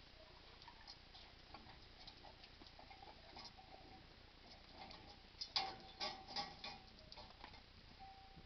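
Faint clicking and rattling as a high-pressure washer hose is pulled off its reel and handled. The clicks come louder and closer together from about five and a half seconds in, for a second or so, with a short steady squeak among them.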